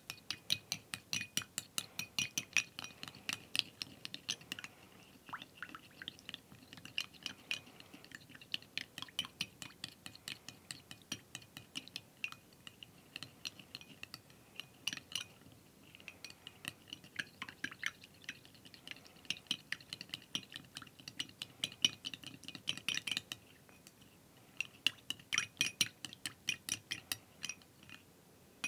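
A small metal spoon stirring a mixture in a small glass bowl, clinking quickly against the glass at about four clinks a second, in runs with a few brief pauses.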